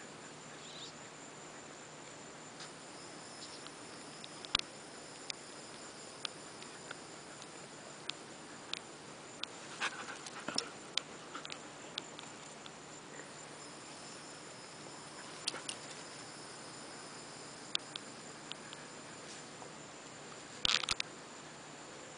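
Steady high insect trill, with a second fainter one coming and going, over scattered soft ticks and scuffles from dogs playing on sand; a couple of brief louder scuffles about ten seconds in and again near the end.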